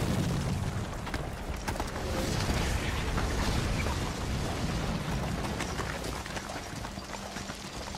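Rock face blasted apart: a dense roar of shattering rock, with many small impacts of falling debris, slowly fading.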